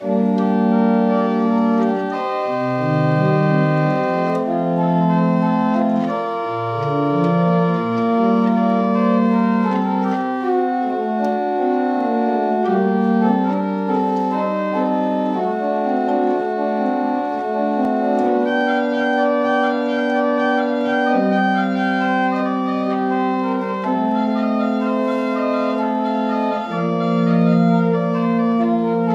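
Church pipe organ playing a closing voluntary in full, sustained chords with moving inner and bass lines. It starts suddenly.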